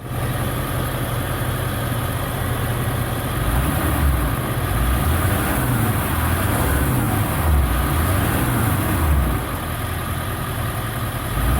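Ford 7.3 Power Stroke turbo-diesel V8 idling steadily, warm and freshly filled with new oil; it is running quietly.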